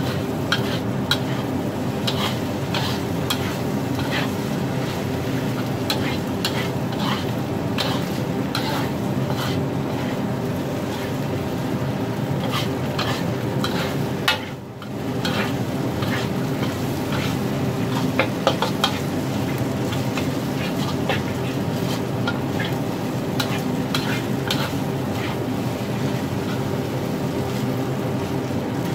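Metal spatula scraping and clicking against an iron wok as egg fried rice is stir-fried, the rice sizzling steadily underneath, with a short break about halfway.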